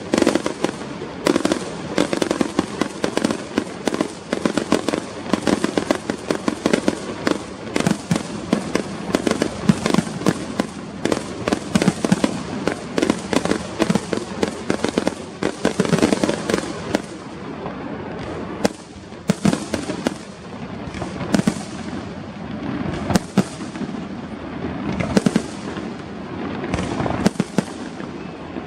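Fireworks going off: a dense run of bangs and crackling bursts for a little over half the time, then thinning to separate bangs with short lulls between them.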